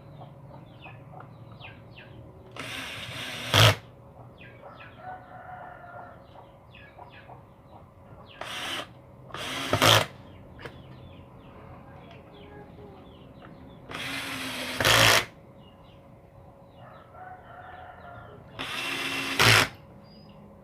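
Four short bursts from a handheld power tool, each about a second long and ending in a sharp, louder peak. A rooster crows faintly twice in the background between them.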